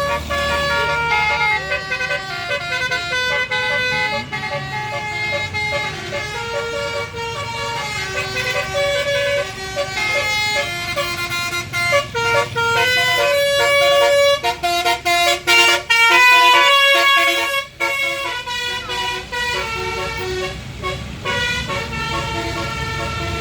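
Bus basuri horn, a multi-note musical horn, playing a melody in stepped notes over the rumble of the bus. It is loudest around the middle and breaks into short, choppy notes about two-thirds of the way through.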